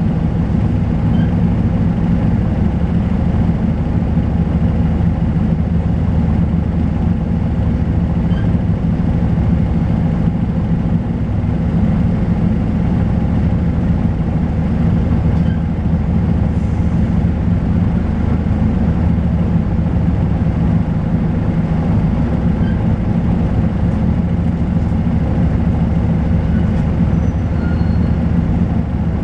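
Volvo B10BLE bus's diesel engine running steadily, its note holding even with no revving up or down.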